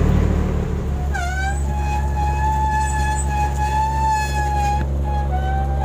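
Steady low drone of the shrimp trawler's engine under way. A sustained high tone enters about a second in, sliding up and then holding its pitch for several seconds, with a short break near the end.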